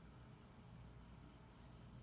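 Near silence, with a faint steady low hum.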